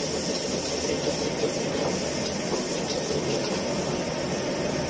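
Steady roar of a gas wok burner under vegetables being stir-fried in a wok, with a few light scrapes and knocks of the ladle.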